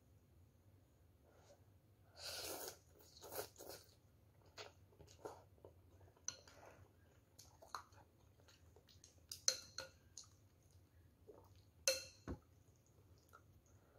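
Close-up mouth sounds of someone eating noodles: a drawn-out slurp about two seconds in, then intermittent chewing and lip smacks. A few sharp clicks of a metal spoon and chopsticks against the bowl come through, two of them louder than the rest.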